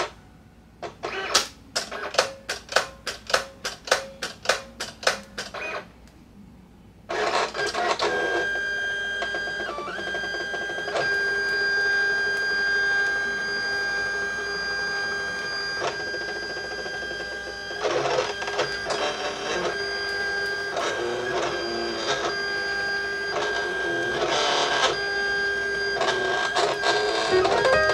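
Electronic craft cutting machine working on cardstock. It gives a run of even clicks, about three a second, for the first six seconds. After a short pause it runs on with a steady motor whine whose pitches hold and shift slightly as it moves.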